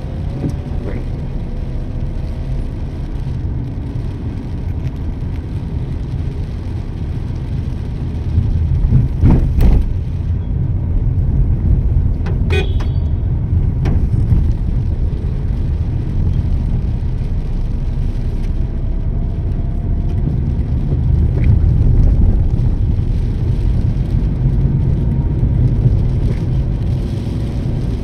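Steady low rumble of wind and road noise from a vehicle moving through city traffic, louder from about eight seconds in. A few short sharp sounds come around ten and thirteen seconds in, and a faint horn later on.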